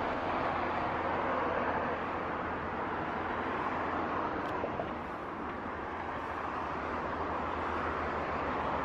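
Steady road traffic noise: cars on a street making an even rush with no sharp events.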